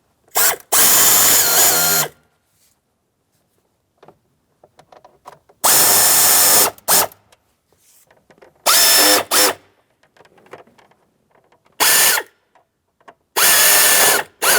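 Cordless power drill-driver with a Phillips bit run in about six short bursts, snugging down the mounting bolts of a glove box panel; each burst is a steady motor whine that stops abruptly.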